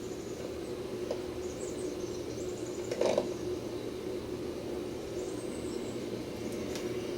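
A steady mechanical hum with a steady low tone, with a short knock about three seconds in.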